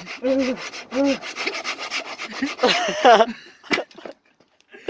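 Hand saw cutting through a firewood log in rapid back-and-forth strokes, which stop about three seconds in. Short voiced sounds come in near the start, and a voice about three seconds in.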